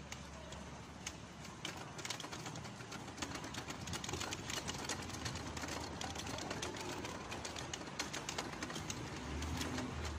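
Airport luggage trolley rolling over the paved walkway, its wheels and frame rattling in a rapid run of small clicks that start about two seconds in and grow busier, over a steady low hum.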